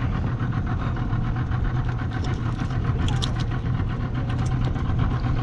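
A small boat's engine idling steadily with an even low hum, a few faint ticks showing over it about two to three seconds in.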